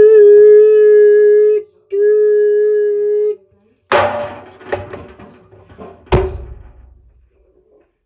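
A voice holds two long, steady, alarm-like tones, each about a second and a half. Then come a few knocks and bumps, and a heavy thud about six seconds in as the clothes dryer door shuts.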